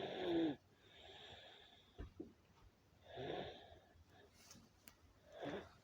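A boy snoring in his sleep: a rasping snore near the start is the loudest, then softer breaths, with further snoring breaths about three seconds in and again near the end.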